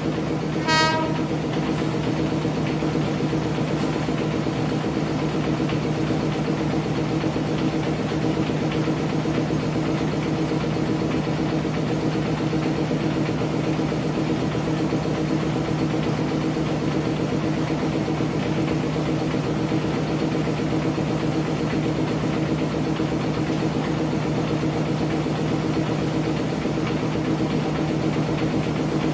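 Diesel engine of an Apolo passenger railcar running steadily as it rolls slowly toward the crossing, with one short horn toot about a second in.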